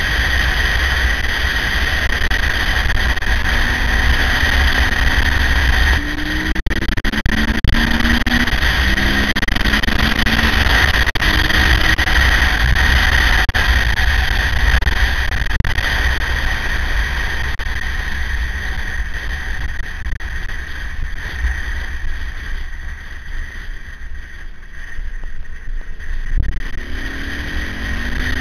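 KTM 950's LC8 V-twin engine running while the motorcycle is ridden, heard through heavy wind rush on a bike-mounted microphone. The engine note climbs in steps a few seconds in and rises again near the end, with a quieter stretch in between.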